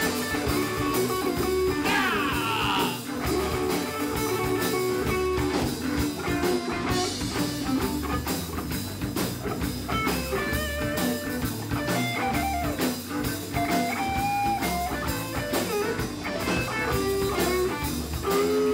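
A blues band playing: guitars over a steady drum beat, with a lead line that slides down in pitch about two seconds in.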